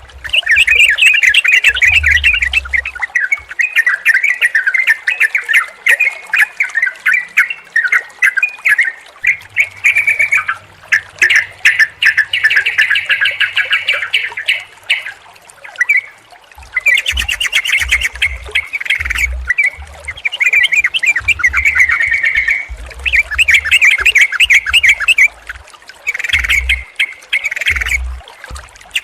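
Yellow-vented bulbuls (trucukan) singing, several birds' bubbly chattering phrases overlapping in dense bursts with short pauses between them.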